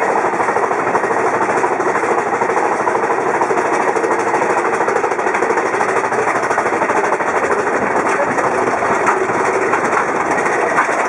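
Big Thunder Mountain Railroad mine-train roller coaster running on its track, heard from aboard a car: a loud, steady rattling clatter of the cars and wheels, with a couple of sharper clacks near the end.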